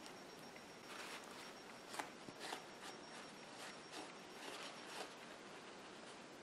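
Faint rubbing and dabbing of a paintbrush and then a paper towel over a papier-mâché mask's ear as glaze is worked in and wiped off, with a few light taps around two and five seconds in.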